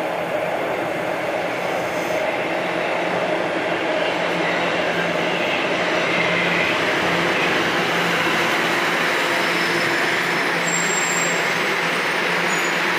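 Toronto Rocket subway train arriving at an underground station platform, its running noise and motor hum building over the first few seconds, then holding steady as it rolls in alongside. Brief faint high squeaks come near the end.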